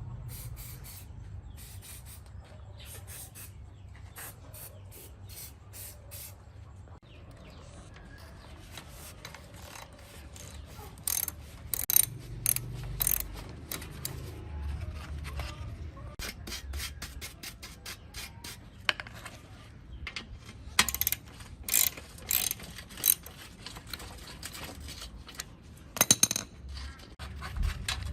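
Runs of rapid ratcheting clicks from bicycle parts being worked on, with rubbing and scraping between them; the clicks come in bursts, loudest in the second half.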